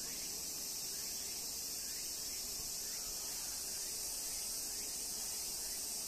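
Steady, high-pitched insect chorus that continues without a break.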